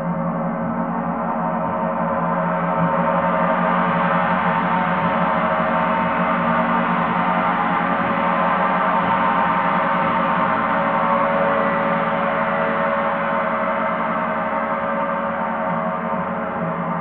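Paiste planetary gongs ringing in a dense, sustained wash of many overlapping tones, with no separate strikes standing out. The sound swells over the first few seconds and eases off slightly near the end.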